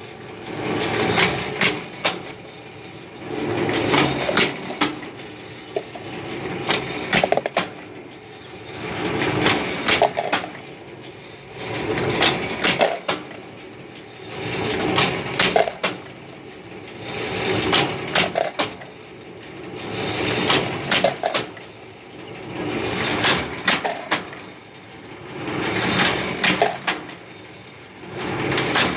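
Workshop machinery working in a regular cycle, each rise roughly every two and a half to three seconds carrying sharp metallic clanks.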